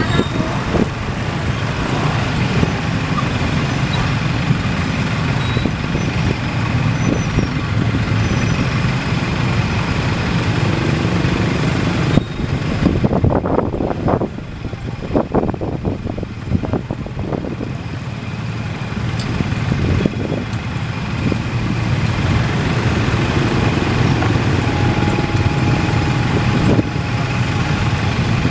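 Busy road traffic, mostly small motorcycles and some cars running past, a continuous engine and tyre noise that swells and eases as vehicles go by. It dips a little for a few seconds around the middle.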